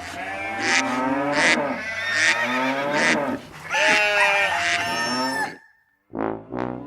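Farm animal calls layered together: cattle mooing along with fowl calls, stopping about five and a half seconds in. A few notes of music start near the end.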